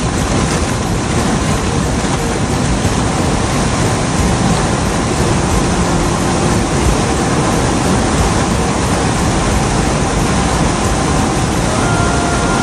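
Steady, loud rushing of wind on the microphone during a ride, with the vehicle's running mixed in underneath. A faint steady whine joins near the end.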